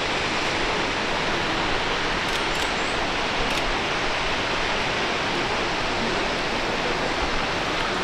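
Steady roar of a large waterfall, water pouring down over rock ledges into a plunge pool.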